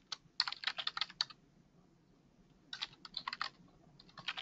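Typing on a computer keyboard: runs of quick keystrokes, a pause of about a second and a half, then more typing.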